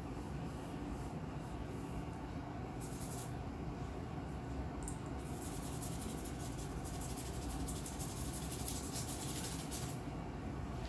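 Paintbrush bristles scratching and scrubbing over watercolour paper: one short stroke about three seconds in, then a longer run of strokes from about five seconds in until just before the end, over a steady low room hum.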